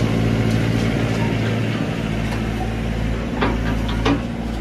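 Tracked excavator's diesel engine running steadily, heard from inside the cab as the machine works between the tipper truck and the dig. There are a couple of short knocks near the end.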